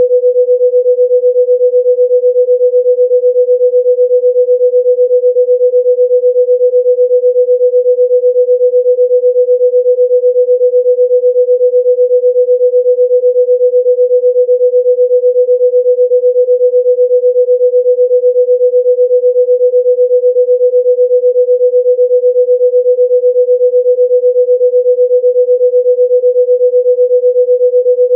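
A single steady electronic tone, mid-pitched and held without change: a sound-healing frequency tone.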